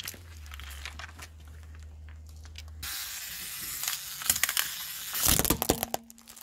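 A car engine idling with a low hum, then a car tyre crushing a hollow plastic toy: loud cracking and crunching in two spells, about four seconds in and again a second later.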